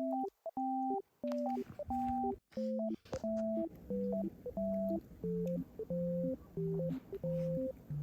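Background music: a simple electronic melody of plain, beep-like tones, a higher line over a lower one, moving in short even notes.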